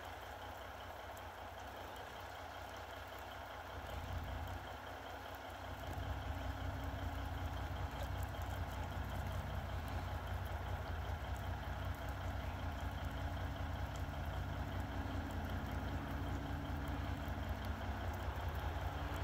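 5-ton military truck's engine idling with a low, steady rumble, swelling about four seconds in and settling into a louder, steady drone from about six seconds on as the truck is readied to pull the chained pickup.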